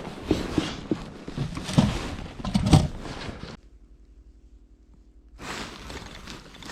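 Wind buffeting the microphone, with handling knocks and thumps. It drops to near silence for about two seconds just past the middle, then the rough noise comes back.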